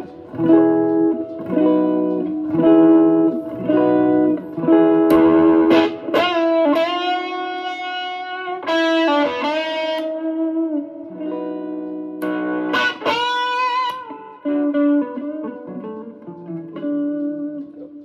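Les Paul-style electric guitar with humbucking pickups, played through an amplifier: a run of repeated strummed chords, then held notes that ring out bright with a driven edge. Between phrases the player works the guitar's volume and tone knobs, and the sound turns darker.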